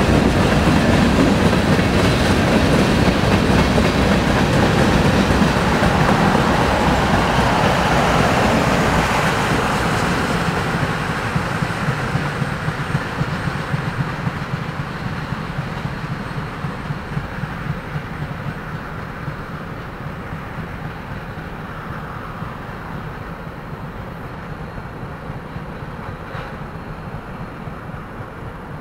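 Freight train of tank cars rolling by, its wheels clicking over the rail joints. The rumble is loudest at first and fades steadily from about a third of the way in as the train moves off.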